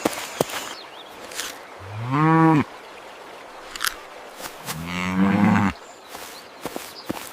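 A cow mooing twice, each moo lasting just under a second, with scattered light clicks and taps in between.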